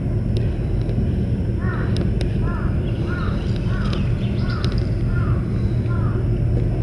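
A crow cawing seven times in an even series, about one call every 0.7 seconds, over a steady low rumble with a hum. A couple of sharp clicks come about two seconds in.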